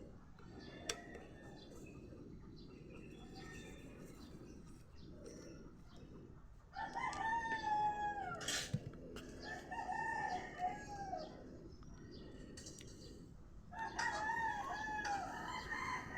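A rooster crowing twice, first about seven seconds in and again near the end, over a steady low background hum.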